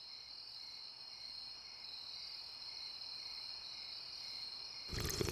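Crickets chirping in a steady, continuous high trill. A short burst of noise comes near the end.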